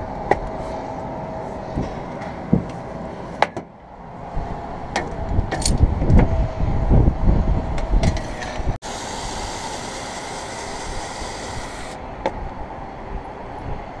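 Wind buffeting the microphone, a low rumble that rises and falls, with scattered clicks and knocks from handling an aluminium window frame and tools. About nine seconds in the rumble cuts off and a steady hiss takes over for about three seconds, then the rumble returns.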